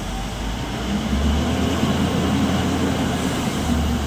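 Diesel engine of a LiuGong wheel loader running with a steady low rumble, growing louder about a second in as the loader lifts its full bucket under hydraulic load.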